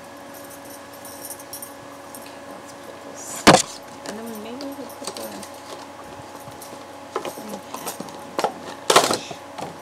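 Handling noise: a sharp knock about a third of the way in, followed by a short wavering whine, then scattered clicks and two louder knocks near the end, over a faint steady hum.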